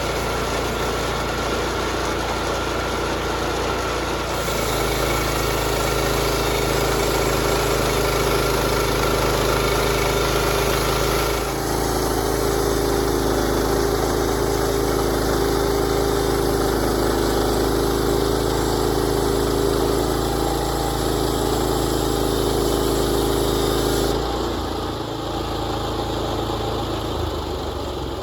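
Gasoline engine of a Woodland Mills portable bandsaw sawmill running steadily while milling a pine log. Its note shifts a few times and drops to a softer level a few seconds before the end.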